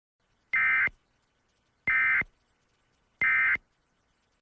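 Emergency Alert System end-of-message data bursts: three short, harsh digital screeches about 1.3 s apart, each a warble between two high tones. This is the SAME 'NNNN' end-of-message code that closes an alert.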